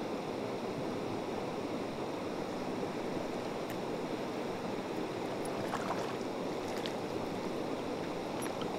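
Creek water flowing steadily, with a few faint clicks around the middle.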